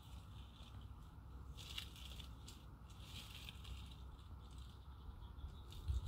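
Faint rustling and crunching, swelling briefly about two and three seconds in, over a low rumble.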